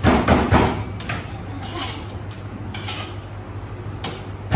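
Metal spatula clanking and scraping against a steel wok while rice is stir-fried: a quick run of knocks at the start, then scattered single strikes.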